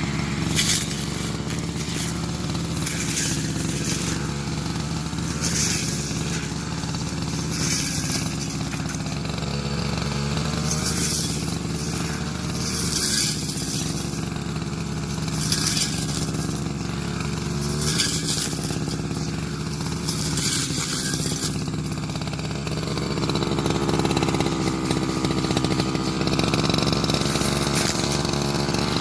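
Petrol grass cutter's small engine running steadily while cutting grass, with a swish about every two to three seconds as it sweeps through the grass. About 23 seconds in the engine speeds up and gets a little louder.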